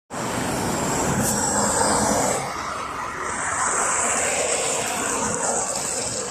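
City road traffic: cars, minibuses and buses running past on a busy multi-lane street, a steady wash of engine and tyre noise with a thin high hiss on top.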